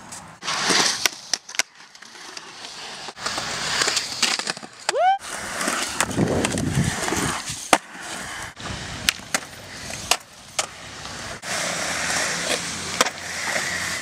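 Skateboard wheels rolling over concrete, broken by repeated sharp clacks and knocks of the board hitting and landing on the ground.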